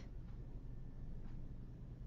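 Quiet room tone with a low steady hum, in a pause between spoken phrases.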